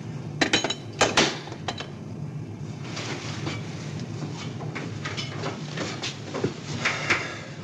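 Steady low hum of submarine machinery, with several sharp metallic clicks and knocks in quick succession about a second in and a few more near the end.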